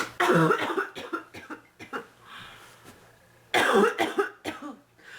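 A woman coughing in fits: a loud run of quick coughs, a few smaller ones, then another loud run about three and a half seconds in. The cough comes from bronchitis.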